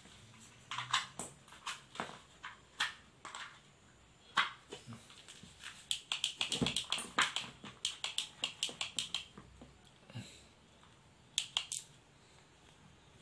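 Scattered clicks and taps from handling a switched-off electric car polisher, with a quick run of clicks about halfway through.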